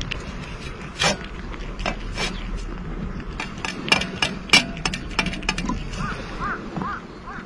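Cats eating from a metal dish: a run of sharp clicks and clinks from chewing and from teeth and tongues striking the metal, over a steady low hum. Near the end a string of short rising-and-falling calls begins, about two a second.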